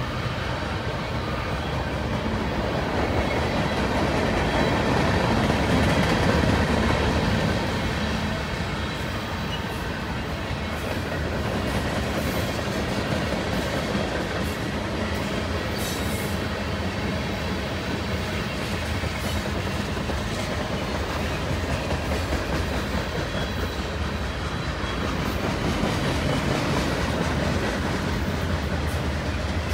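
Freight cars of a long 153-car mixed manifest train rolling past: a steady noise of steel wheels running on the rails, louder for a few seconds near the start.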